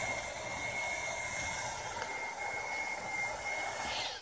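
Motorized zipline retrieval winch running steadily, reeling the trolley back along the cable, with a steady high whine over a hiss; it cuts off sharply near the end.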